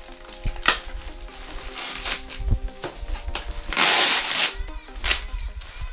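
Plastic and paper packaging rustling in short bursts as items are taken out of a subwoofer's box, the longest and loudest rustle about four seconds in, over background music.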